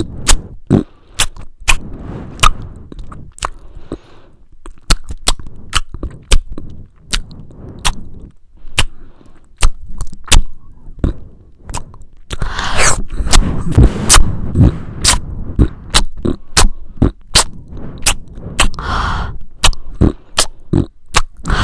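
Chewing and mouth sounds, heard close up: a steady run of sharp clicks and smacks, with two louder, rougher stretches, one about halfway through and one near the end.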